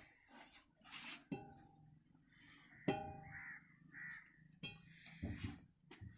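A few scattered metallic knocks, each ringing on briefly, with two short caw-like calls between them about three and four seconds in.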